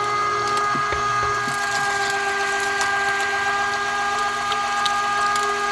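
Electric meat grinder running with a steady motor whine while raw meat and beef fat are fed through the auger, with a few faint clicks.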